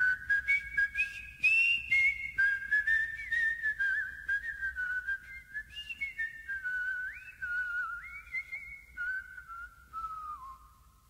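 A slow, wavering whistled tune that holds notes and slides between them, over scattered clicks and crackle. It fades away near the end.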